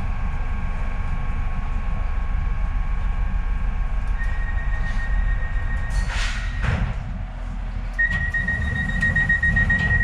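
Docklands Light Railway train rumbling steadily, with a high steady warning tone that starts about four seconds in and grows louder near the end. Two short rushing whooshes, one midway and one at the end, fit the doors moving.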